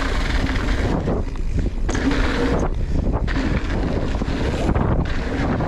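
Wind buffeting an action camera's microphone while riding a mountain bike down a trail, over a steady low rumble from the bike and tyres on the ground.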